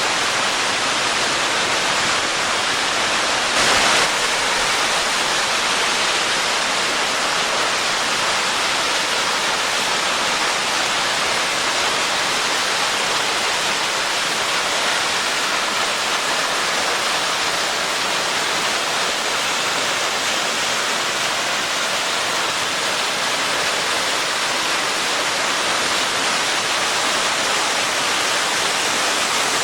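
Steady rushing roar of Buttermilk Falls, a waterfall, close by. One brief louder burst of noise comes about four seconds in.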